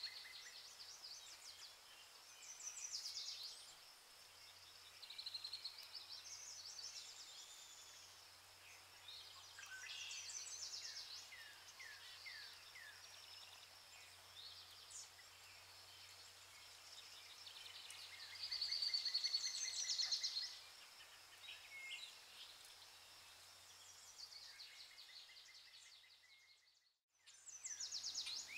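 Several birds chirping and singing, with quick trills and short falling whistles, over a faint steady low hum. The sound cuts out completely for about a second near the end, then the birdsong resumes.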